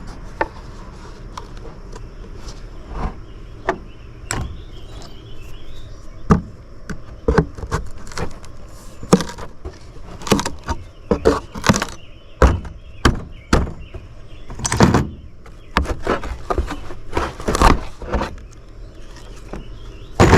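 Irregular knocks and clanks of hand tools working at an old radio's metal chassis as the speaker is taken out. A few knocks at first, then many in quick clusters from about a third of the way in.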